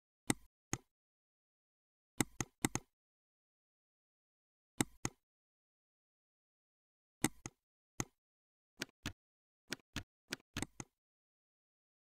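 Computer mouse clicking as checkboxes are ticked and spin-box arrows are stepped: sharp clicks in ones and twos at irregular gaps, with a quicker run of clicks from about eight to eleven seconds in. Dead silence between the clicks.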